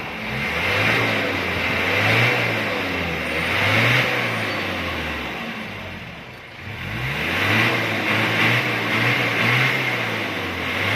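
Mitsubishi Adventure's engine being revved up and down several times for an exhaust smoke test. The revs dip almost to idle about six seconds in, then climb again and are held high with small wobbles.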